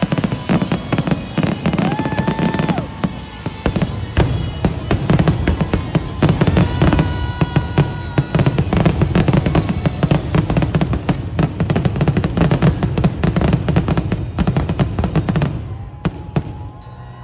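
Fireworks going off in a rapid, dense string of bangs and crackling, with music playing under them. The bursts thin out and the sound drops near the end.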